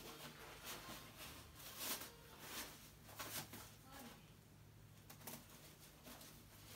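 Faint rustling and soft taps of hands handling the head and collar of a life-size Gemmy Dr. Shivers animatronic figure, over a faint steady low hum.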